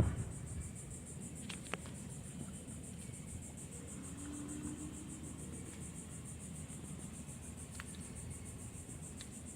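Insects trilling outdoors: a steady, high-pitched, finely pulsing chorus of cricket-like insects, with a few faint clicks.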